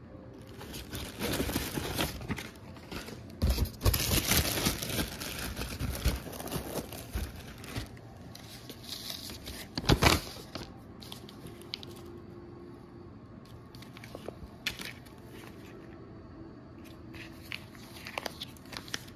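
Paper and a vacuum-sealed plastic package being handled, crinkling and rustling in bursts over the first several seconds. One sharp, louder crinkle comes about ten seconds in, then only occasional light clicks and rustles.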